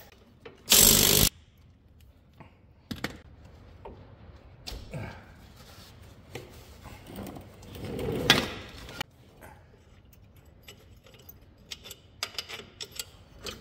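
Cordless impact wrench firing one short burst about a second in, breaking loose the centre bolt of a riding mower's electric PTO clutch. Scattered clicks and knocks of parts being handled follow, with a longer, louder rattle about eight seconds in.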